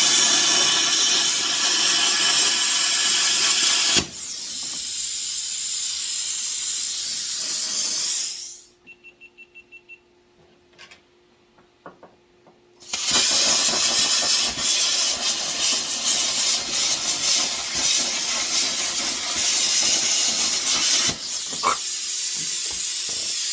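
Arc welding: a steady, dense crackling hiss from the welding arc in two long runs, with a gap of a few seconds in the middle where it stops. A faint steady hum from the welding machine sits underneath.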